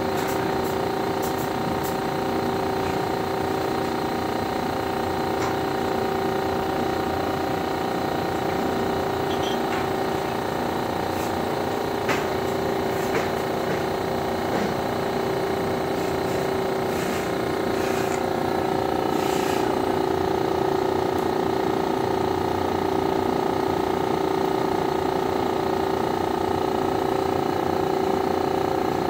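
Steady machine hum with several fixed tones, typical of the fan moving air through a filter test rig during a photometer leak scan; it grows slightly louder about two-thirds of the way through, with a few faint clicks.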